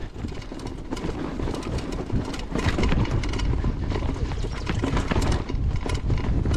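Mountain bike riding fast down a dirt trail: wind rumbling on the camera microphone and tyre noise on the dirt, with frequent clicks and knocks as the bike rattles over bumps.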